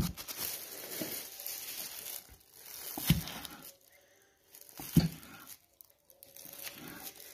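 Thin plastic food-prep gloves crinkling and rustling as hands press and handle a dough roll, with two sharp knocks about three and five seconds in as a blade cuts slits through the dough onto a wooden board.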